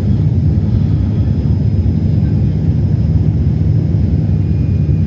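Passenger airliner cabin noise heard from inside the cabin: a steady low rumble of engines and airflow, with a faint steady high whine above it.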